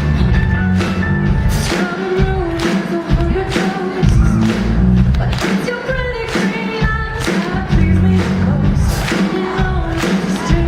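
A live pop band playing a song, with singing over drums and bass keeping a steady beat.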